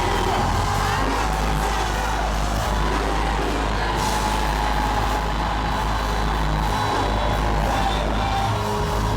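A congregation singing and shouting praise all at once, each voice on its own song, over live worship music with a steady bass and held chords.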